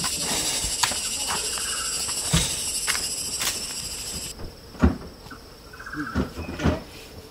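A steady, high-pitched insect chorus that cuts off abruptly a little past halfway through, over scattered footsteps and knocks on the forest trail; the loudest knock comes about five seconds in.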